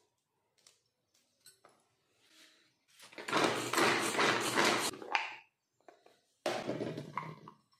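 Plastic pull-string hand chopper working: several quick yanks on the cord spin the blades, which whirr and rattle as they chop onion, garlic and green chillies in the bowl, loud for about two seconds from three seconds in. A second short burst of plastic handling noise follows near the end.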